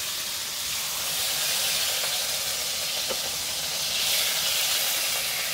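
Chicken pieces sizzling in hot oil in a steel wok over a gas flame: a steady hiss that grows a little louder about four seconds in.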